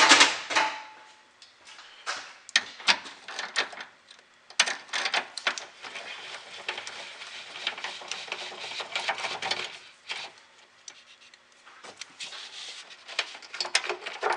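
Socket ratchet wrench clicking as it undoes the battery hold-down clamp bolt, with a loud knock at the start and a long run of rapid clicks through the middle.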